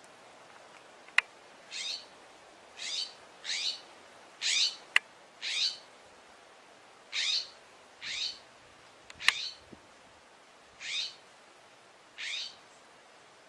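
A bird calling over and over: about ten short, high, scratchy calls, roughly one a second, with a few sharp clicks between them.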